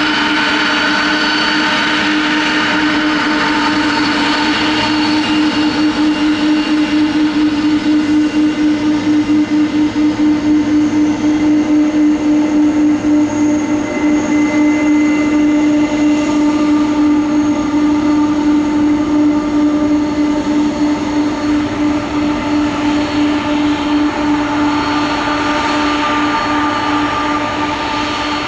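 Boeing 747-400F freighter's four jet engines running loud during its take-off, a steady drone of several held tones with a rapid throb through the middle.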